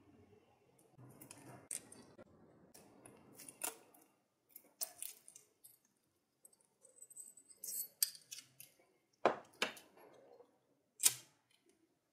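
Small metal hand-tool work on a rusty lighter flint-wheel screw: light scraping and clicking as a drill bit held in pliers is twisted into its hollow end to clear out rust. Three louder, sharp metal clicks come in the last few seconds, the loudest about a second before the end.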